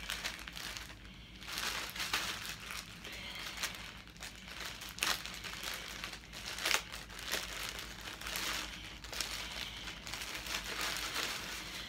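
Clear plastic poly bag crinkling and rustling as hands work it open around a folded knit garment, in irregular bursts with a couple of sharper crackles midway.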